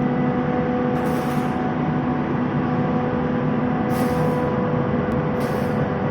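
Rotary screw air compressor running with a steady hum, joined by three short hisses of air about one, four and five and a half seconds in.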